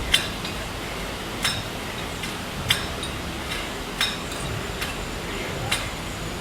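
Sharp metallic clinks and clacks of gym equipment, five of them about a second and a half apart, over a steady background hiss.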